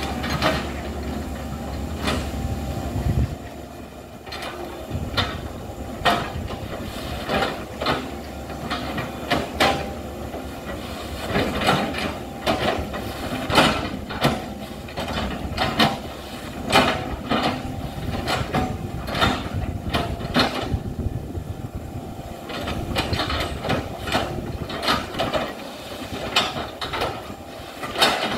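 Hitachi hydraulic excavator's diesel engine running, with irregular knocks, clanks and creaks, about one or two a second, as the bucket chops up felled oil palm trunks. The engine's low hum is heavier for the first few seconds, then eases.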